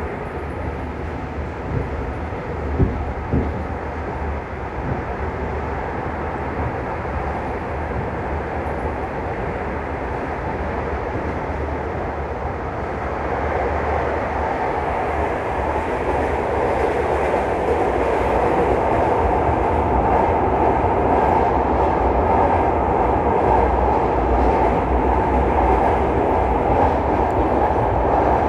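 A steady rumbling noise that grows louder about halfway through, with a few sharp knocks a few seconds in.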